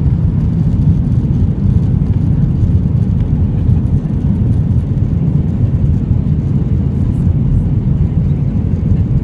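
Airbus A321 jet engines at takeoff thrust, heard inside the cabin during the takeoff roll: a loud, steady, deep rumble.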